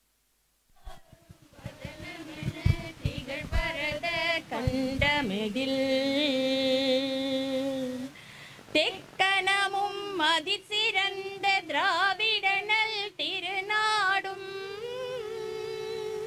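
A group of women singing a song together in long held notes with a wavering pitch. The singing starts about a second in and breaks off briefly around the middle.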